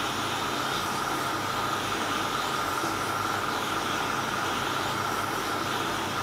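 Metal lathe running steadily with a constant whine, spinning a plastic-pipe lap while a small steam-engine cylinder block is worked onto it by hand to lap the bore.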